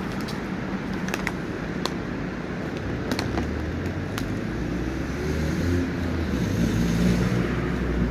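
Steady low rumble of road traffic that grows heavier a few seconds in, with a few sharp clicks in the first few seconds.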